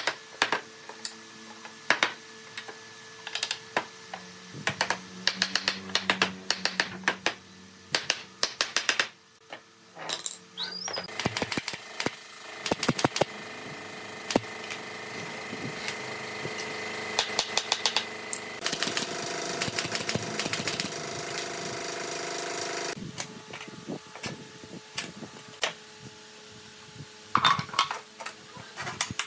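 Pneumatic nail gun driving nails into a wooden chair frame: sharp shots, some single and some in quick runs. A steady mechanical hum runs through the middle stretch.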